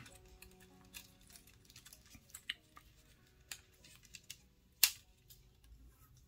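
Small scattered clicks and taps of fingers handling and pressing down a thin ribbon flex cable on a tablet's opened plastic frame, with one sharper click a little before five seconds in.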